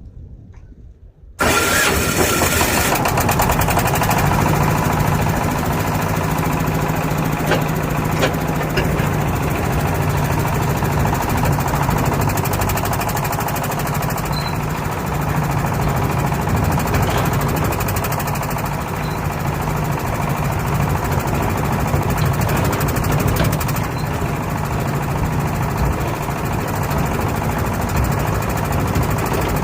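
A river cargo boat's engine running steadily, a loud continuous drone that comes in abruptly about a second in.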